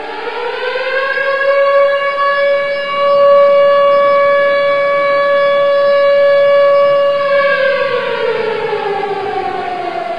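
Civil defense siren sounding the minute of silence: its wail rises in pitch over the first couple of seconds, holds one steady note with overtones, then falls away from about seven and a half seconds in.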